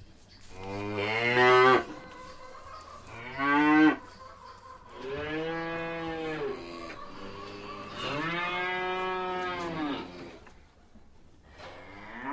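Cattle mooing: a run of separate calls, two short ones, then two longer drawn-out ones, and another beginning near the end.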